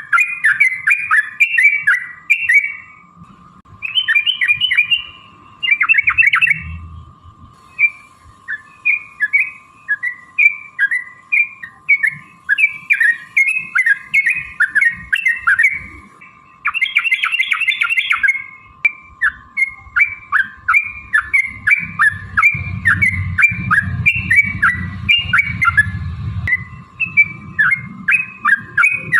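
Yellow-vented bulbul (trucukan) singing long, rapid runs of chattering chirps, strings of quick notes broken by short pauses. A faint steady whine hums underneath, and a low rumble joins in the later part.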